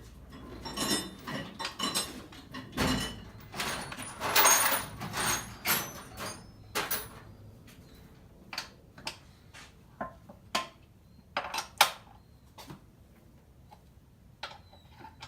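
Metal hand tools clattering and clicking against an Evo 9 transmission mount as its Allen bolts are worked loose: a dense run of clanks for the first half, then single sharp clicks spaced out.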